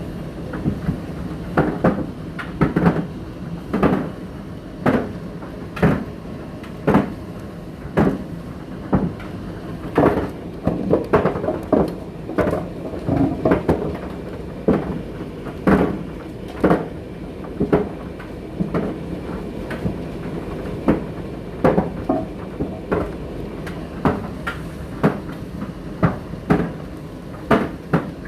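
Indesit IDC8T3 condenser tumble dryer running, its load thudding against the drum about once a second over a steady motor hum.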